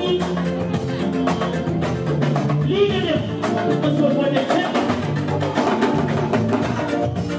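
Live band music with a fast, dense drum beat over sustained keyboard and bass notes.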